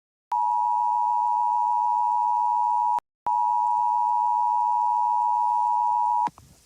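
Emergency Alert System-style two-tone attention signal: two steady high tones sound together for about three seconds, break off briefly, then sound again for about three seconds and stop with a click.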